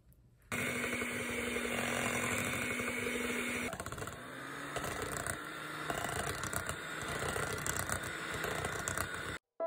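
Electric hand mixer whipping cream in a bowl, the beaters running steadily. Its tone shifts about three and a half seconds in, and it cuts off just before the end.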